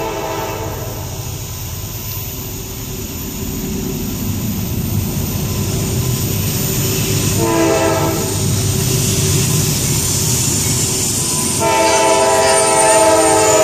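Approaching Norfolk Southern diesel locomotive sounding its multi-note horn in blasts: one ends about a second in, a short blast comes about halfway, and a long blast starts near the end. Under the horn, the low rumble of the oncoming train grows steadily louder.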